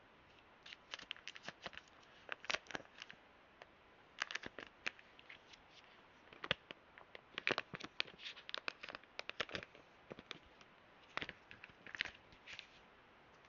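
Packaging being handled by hand during an unboxing: clusters of small crackles and clicks, in four or five bunches with short quiet pauses between.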